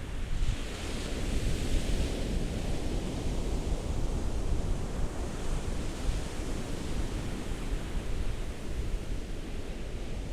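Ocean waves breaking and washing on a shore, a continuous surf noise. A hissing wash swells about a second in and again, more faintly, midway.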